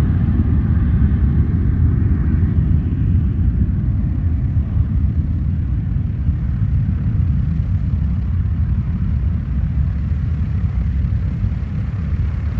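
Business jet's engines at takeoff thrust: a loud, deep, steady rumble that slowly fades as the jet moves away down the runway.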